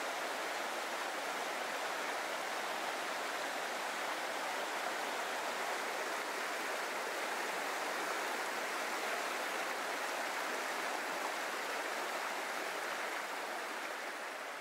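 Small rocky mountain stream rushing over stones and little cascades, a steady even rush of water that fades out near the end.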